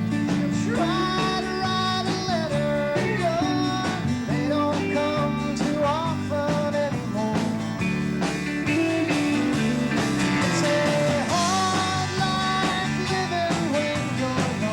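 Live rock band playing, with guitar, bass and drums keeping a steady beat and a lead line sliding up and down in pitch.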